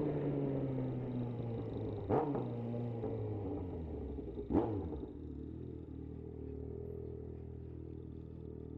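Yamaha XJ6's inline-four engine with its note falling as it slows, cut by two short sharp cracks about two and a half seconds apart. About five seconds in it settles to a steady idle.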